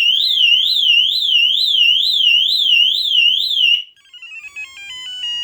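Pandora DX-42 motorcycle alarm siren wailing, a high warble sweeping up and down about three times a second, set off by the clutch being pulled while the alarm was armed. It cuts off about four seconds in, and a string of short electronic tones stepping through different pitches follows.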